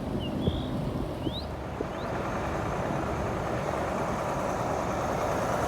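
Truck engine running, its noise slowly growing louder as it draws near. A few faint high chirps in the first second and a half.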